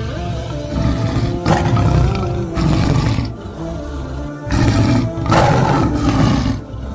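Leopards growling in two long rough bursts, one starting about a second in and another at about four and a half seconds, over steady background music.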